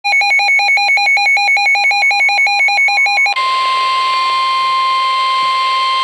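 Midland NOAA weather radio sounding a warning alert. It starts with rapid pulsing beeps alternating between two pitches, about eight a second. About three seconds in, these switch abruptly to the steady 1050 Hz NOAA Weather Radio warning alarm tone, which signals that a warning message, here a flash flood warning, is about to be read.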